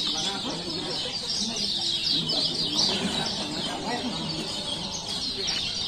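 Many caged kecial kuning (white-eyes) chirping at once in a dense, unbroken run of quick, high, falling chirps, over the low murmur of a crowd talking.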